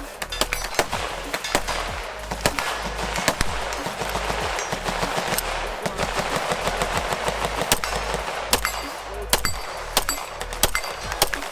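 Gunfire on a shooting range: many sharp shots at irregular intervals, some in quick succession.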